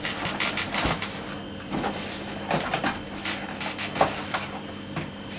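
Cardboard box and packaging being handled, with irregular rustling, scraping and a few light knocks.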